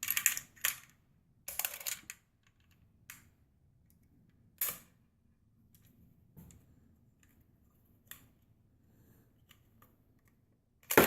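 Cartridges being pressed one at a time into a steel 30-round AK magazine: a series of sharp metallic clicks about every one to two seconds, weaker in the middle, with a louder clatter at the very end.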